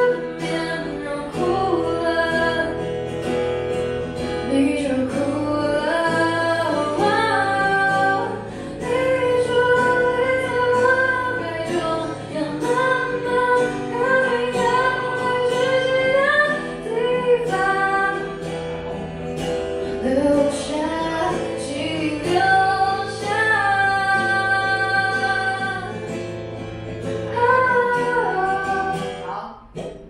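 A woman singing a song live, accompanied by acoustic guitar and a steady low instrumental backing; the song finishes near the end.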